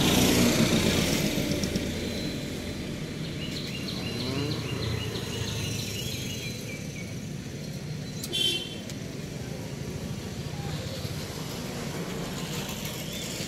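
Steady outdoor background noise, a low rumble like distant traffic, with a run of faint high chirps around four to seven seconds in and one brief higher call about eight seconds in.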